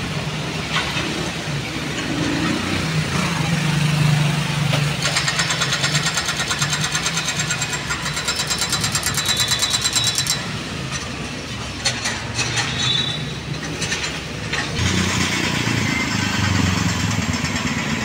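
Street traffic: motorcycle and motorcycle-tricycle engines running and passing close, over a steady low engine hum. A small engine with a fast, even pulse is loudest for about five seconds in the middle, and another engine swells up near the end.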